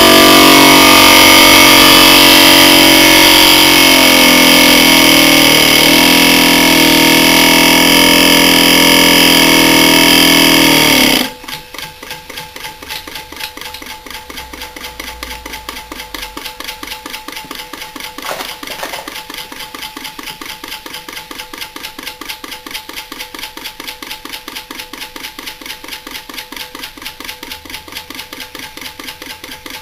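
Bulkon hermetic refrigerant compressor, cut open and running with no oil, switched on: a loud hum with several pitched tones for about eleven seconds. It then drops suddenly much quieter to a fast, steady rattling knock as the dry-running compressor keeps going.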